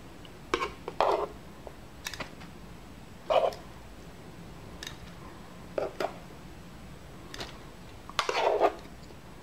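Browned chicken cubes being moved from a frying pan onto paper towels on a plate to drain the oil. A series of short, irregularly spaced taps and scrapes of the utensil and pieces against pan and plate, with a longer cluster near the end.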